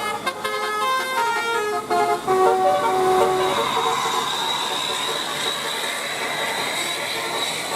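Basuri 'telolet' multi-tone bus horn playing a quick melody of short, stepped notes. The notes stop about three and a half seconds in, leaving a steady rushing noise with a faint high whine.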